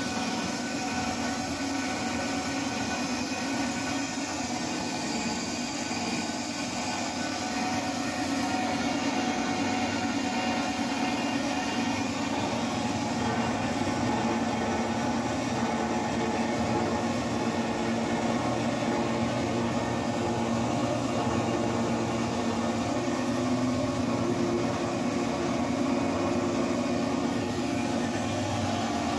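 RMT S-FAB CM 30-31 column-type bandsaw running steadily as its blade cuts through 27-inch ductile iron pipe, a constant machine hum and whir that grows a little louder about eight seconds in.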